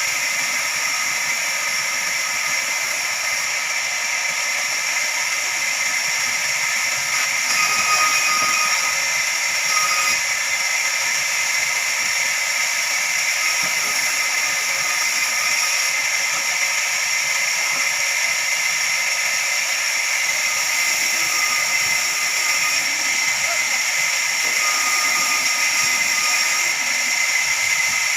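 Large horizontal band sawmill running, its blade giving a steady high whine over a hiss, with a few short extra tones along the way.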